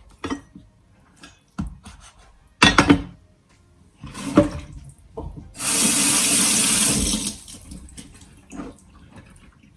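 Kitchen tap running into the sink for about a second and a half, a steady hiss that starts and stops abruptly past the middle. Before it come a few knocks and handling noises, the loudest about three seconds in.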